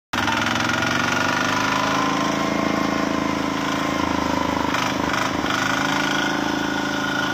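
Small diesel tractor engines running steadily, including a Kubota RT single-cylinder diesel, with a brief burst of extra noise about five seconds in.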